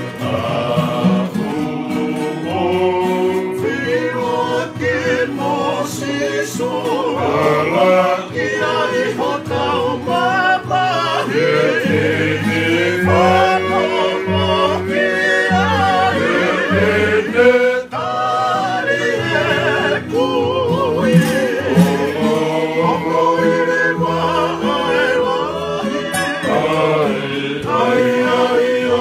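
Several men singing together to two strummed acoustic guitars, an unbroken song.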